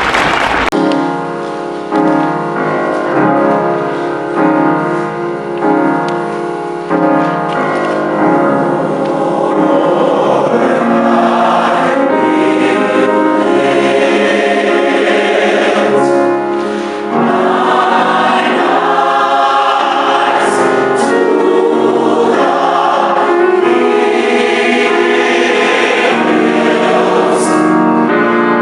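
A choir singing gospel music in long held chords.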